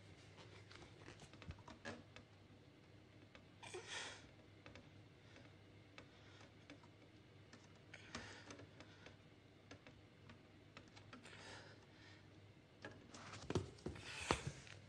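Faint scattered clicks and rustles, with a louder cluster of knocks near the end.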